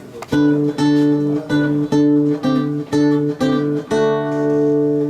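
Acoustic guitar playing a song's introduction: chords struck in a steady rhythm, about two and a half a second, then one chord left to ring for about a second near the end.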